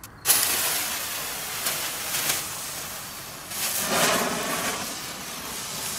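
Hand-held Nico Bengal flare catching light a fraction of a second in, then burning with a steady hiss as it throws sparks. The hiss swells briefly about four seconds in.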